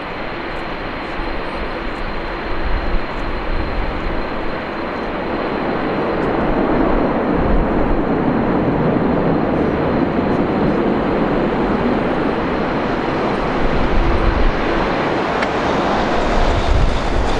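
Thai Airways Airbus A380's four Rolls-Royce Trent 900 jet engines on the landing rollout just after touchdown: a steady noisy rumble with a faint high whine, growing louder from about six seconds in. Gusts of wind buffet the microphone.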